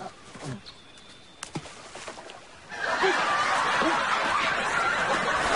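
Quiet outdoor ambience with one sharp click about a second and a half in, then from about three seconds a loud, steady wash of audience laughter.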